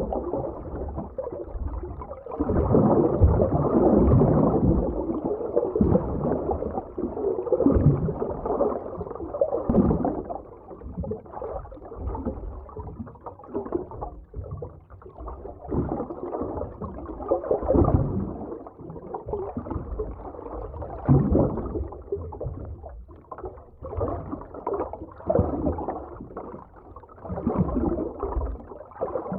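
Underwater ocean ambience: dull, muffled surges and gurgling of water that swell and ebb every few seconds, with no high tones.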